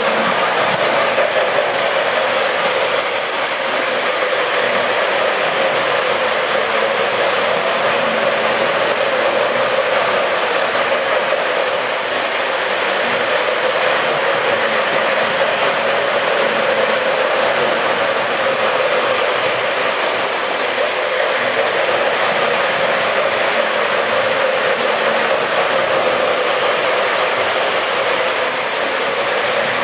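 Model train running on its track: a steady whirring and rumbling of motor and wheels, with a hum that wavers slightly in pitch.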